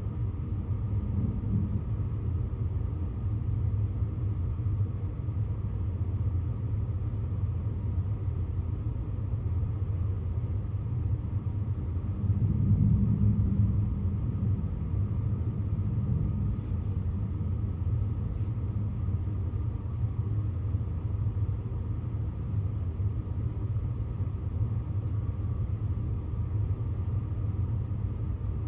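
Steady low rumble of thunder from a lightning storm, swelling for about two seconds near the middle.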